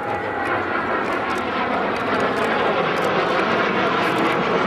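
Kawasaki T-4 jet trainers flying overhead: a steady rushing jet-engine noise that swells just as it begins and then stays loud.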